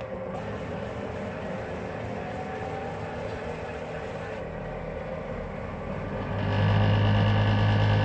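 Silent Partner Smart tennis ball machine's motors running after a preset is selected: a steady hum with a faint rising whine a couple of seconds in, then at about six and a half seconds a much louder, low steady hum comes on as the machine adjusts to the new setting.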